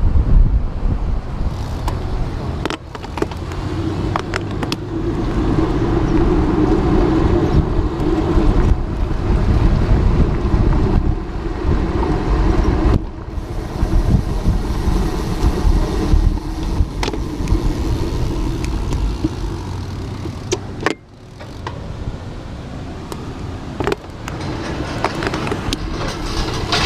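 Road traffic passing a moving bicycle, with gusty wind rushing over the microphone. A steady engine hum stands out through much of the first half.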